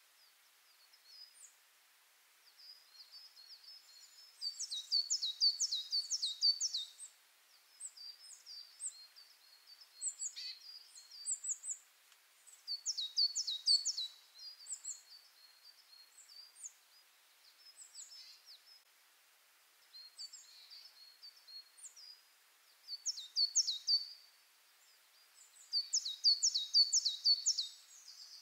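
Small songbirds singing: high phrases of quick, repeated downward-slurred notes, each phrase lasting a second or two, with scattered softer chirps between them.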